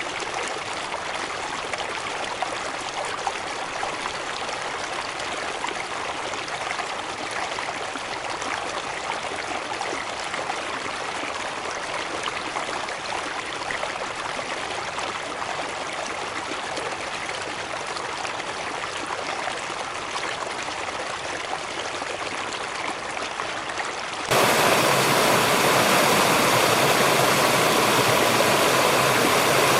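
Waterfall water rushing steadily. About twenty-four seconds in it cuts suddenly to a louder, brighter rush of water.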